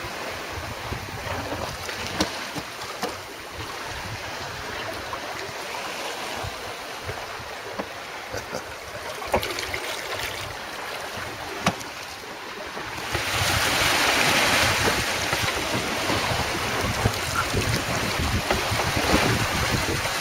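Water rushing along a sailing yacht's hull and wind buffeting the microphone, with a few sharp knocks; about two-thirds of the way through the rush of water and wind grows louder.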